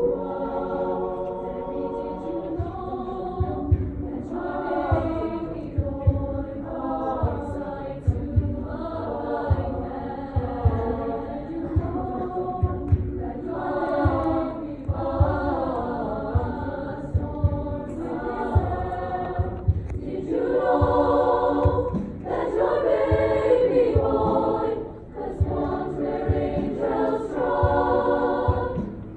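High school choir singing in parts, with a brief break in the singing about three-quarters of the way through.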